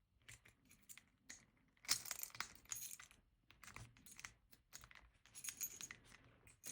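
Scattered light metallic clicks and clinks from an Anchor Lås 800-3 disk detainer padlock being handled and locked again, with busier clusters about two seconds in and near the end.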